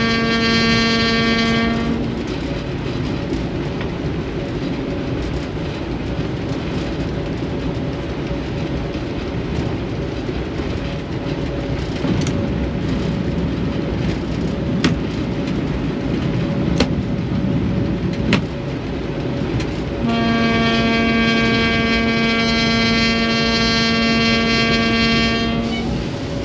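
ST44 'Gagarin' diesel locomotive under way, heard from the cab: engine and track noise throughout, with a few sharp clicks in the middle. A steady one-note horn blast ends about two seconds in, and a second horn blast of about six seconds sounds near the end.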